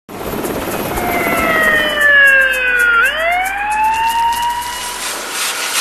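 Emergency-vehicle siren wailing: its pitch slides down for about two seconds, then sweeps back up and levels off.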